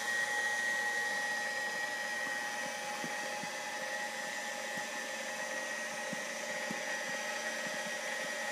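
KitchenAid Heavy Duty stand mixer running steadily, its beater creaming butter, sugar and eggs for a pound cake batter. A steady motor whine with a high, even tone, and a few faint knocks.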